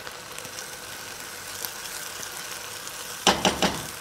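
A steady low hum, then about three seconds in a quick run of about four sharp metal knocks as a slotted metal spoon is knocked against the rim of a cooking pot to shake off rice.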